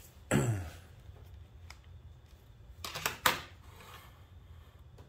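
Handling noises as a small digital pocket scale is brought onto a wooden workbench: a short sliding sound that falls in pitch near the start, then a few sharp clicks and knocks about three seconds in as the scale is set down.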